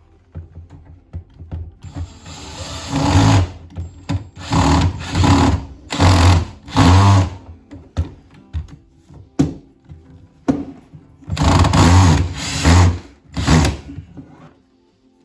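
Handheld power drill running in repeated short bursts of about half a second to a second and a half, with a pause of a few seconds midway: the start-stop pattern of driving fasteners.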